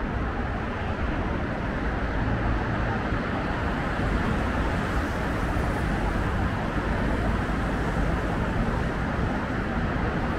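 Steady city road traffic noise, an even hum of cars on the street with no single event standing out.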